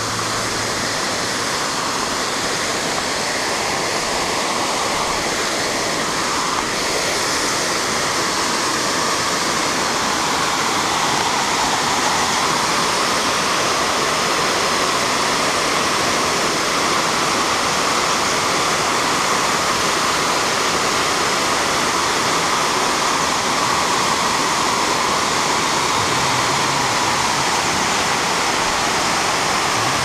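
Waterfall cascading down a rock face: a steady rush of falling water that grows a little louder over the first ten seconds or so, then holds even.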